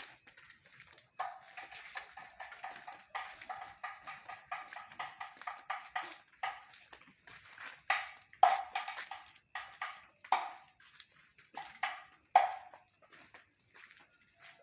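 A bamboo kohkol (kentongan slit drum) being beaten for the night watch: a fast, even run of hollow knocks, about four or five a second, then several louder single strikes further apart in the second half.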